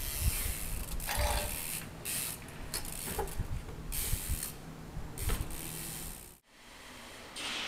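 Trials bicycle being ridden and hopped on and off a wooden block: rattling and clicking of the bike with several dull thumps as its tyres land. About six and a half seconds in the sound cuts to a steady hiss.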